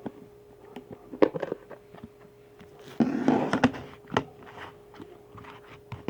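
Handling noises of plastic slime containers being moved and set down. There are a few light knocks, a louder rustling clatter about three seconds in, then another knock, over a faint steady hum.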